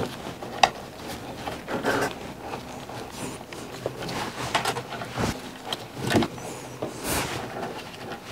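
Scattered small clicks, taps and rustles from hands handling wires, connectors and metal fittings at a gas water heater's burner access door and gas control valve, at irregular intervals.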